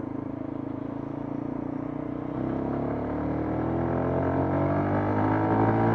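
Lexmoto LXR125's single-cylinder 125cc engine pulling under load, its pitch and loudness rising steadily from about two seconds in as the motorcycle accelerates.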